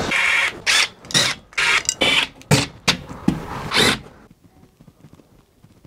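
Cordless drill-driver running in a series of short bursts for about four seconds, then stopping: backing out the screws of old shelf mounts.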